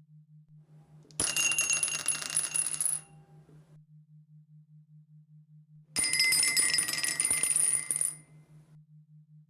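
Dice rolling and clattering on a hard surface in two bursts, each about two seconds long, the second starting about six seconds in, with a faint ringing in each clatter.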